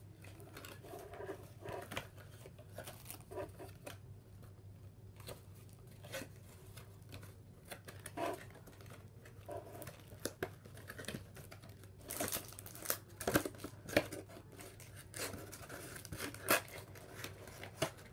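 Cardboard trading-card display box being folded and pulled open by hand: scattered rustles, creases and light knocks of card, louder and busier in the last six seconds.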